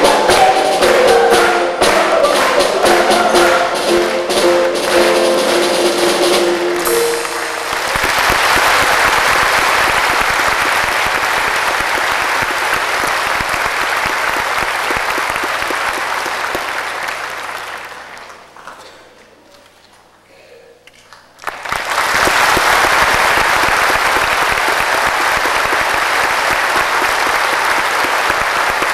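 Children's choir with piano and steady percussion beats finishing a song on a held chord about seven seconds in, followed by audience applause. The applause fades away around eighteen seconds in and breaks back in abruptly some three seconds later.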